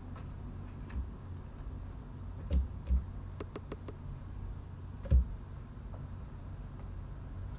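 Tarot cards being handled and set down on a table: a few soft knocks and a quick run of small clicks, over a steady low hum.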